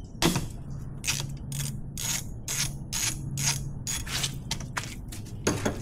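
Ratchet wrench with a 14 mm socket clicking in repeated strokes, about two a second, as it backs out an outboard motor's oil drain plug for an oil change.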